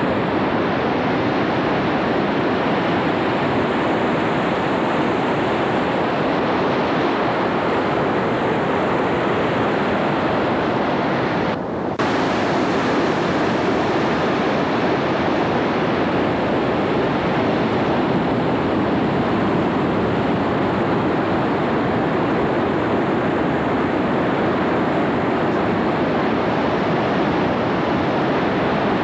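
Ocean surf breaking and washing over a rocky shore, a loud steady rush, with a short drop in level about twelve seconds in.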